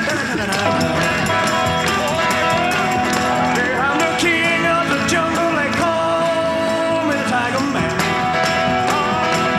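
Rock and roll music with singing at times.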